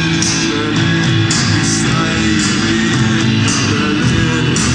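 Live pop band playing, with strummed electric guitar to the fore over bass notes and a steady beat.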